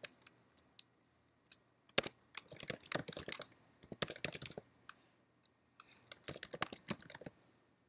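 Typing on a computer keyboard: quick runs of keystrokes in bursts with short pauses between them, as an email address is typed in, stopping shortly before the end.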